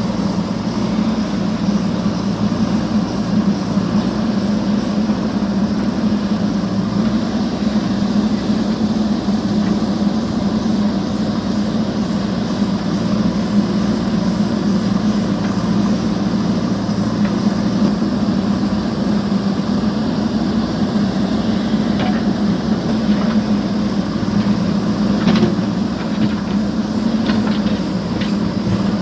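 JCB backhoe loader's diesel engine running steadily under work, with a few faint clicks in the last few seconds.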